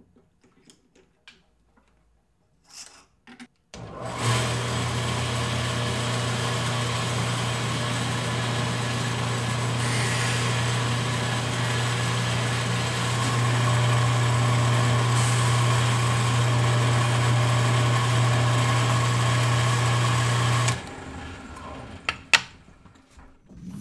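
Powermatic 1150 drill press switched on and running steadily with a low motor hum for about seventeen seconds, then shut off; a couple of sharp clicks follow near the end.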